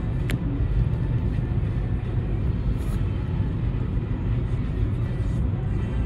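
Steady low rumble of a car driving along a road: engine and tyre noise from the moving vehicle.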